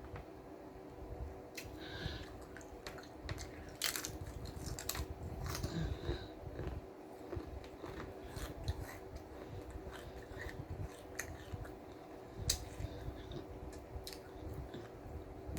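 Close-miked chewing and biting of a BLT sandwich: irregular crunches and wet mouth clicks.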